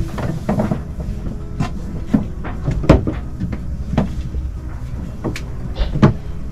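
Irregular knocks and clunks from the crew moving about a sailing yacht's cockpit and handling lines, about seven of them, the loudest about three seconds in. A steady low rumble runs underneath.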